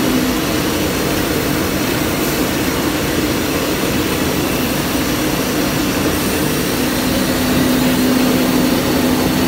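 Car wash floor mat cleaner machine running: a steady mechanical noise with a low hum, as a rubber floor mat is fed into it. The hum grows stronger and the level rises a little about seven seconds in.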